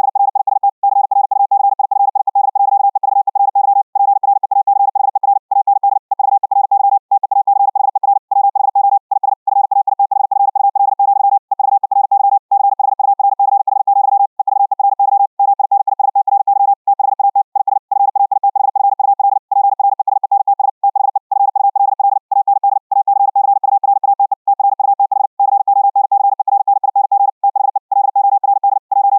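High-speed Morse code (CW) at about 60 words per minute, sent as Vorbis-encoded audio over the internet and played back as received. A single mid-pitched tone is keyed on and off very rapidly, with short gaps between words.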